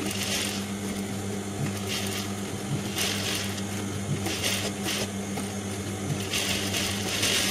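Industrial sewing machine stitching fabric in several short runs, the last one longer near the end, over a steady motor hum.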